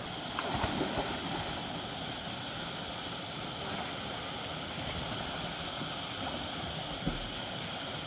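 Steady rushing of a waterfall's falling water, an even roar without let-up, with a brief low thump about seven seconds in.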